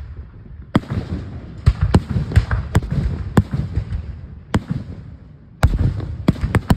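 Aerial fireworks shells bursting: a dozen or so sharp bangs at uneven gaps, with a low rumble and crackle between them. The bangs come fast for the first four seconds, ease off briefly, then close with a quick cluster of loud reports near the end.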